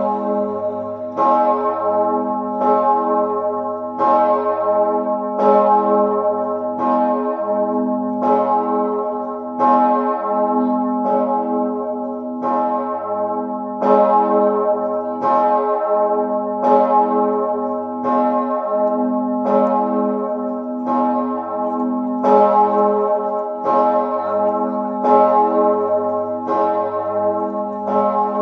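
A single large swinging church bell, the 4820 kg Mauritius bell cast by Perner of Passau in 2003 with strike note A-flat (as°), ringing alone for the Sterbestundenläuten, the death-hour ringing. It strikes evenly about once every 1.4 seconds, each stroke ringing on into the next under a deep, continuous hum.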